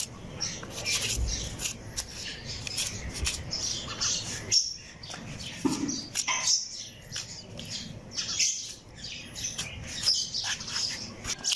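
Small birds chirping busily, with many short, high chirps overlapping throughout, and scattered sharp clicks among them.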